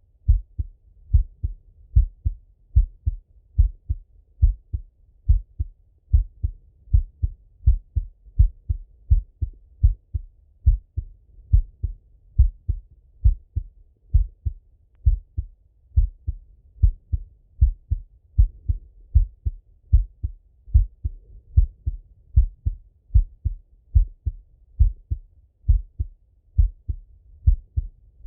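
A man's heartbeat heard through a Littmann stethoscope: a steady, even rhythm of deep lub-dub thuds.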